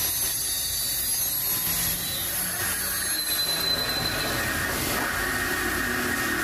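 Metal lathe running steadily, its chuck spinning a meat grinder's threaded ring while the threading tool works the thread.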